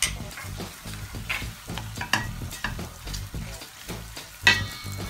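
Sucuk, green pepper and onion frying in a stainless steel pan as tomato paste is stirred in with a plastic spoon: steady sizzling with repeated scrapes of the spoon on the pan. About four and a half seconds in, the spoon gives one sharp clack against the pan that rings briefly.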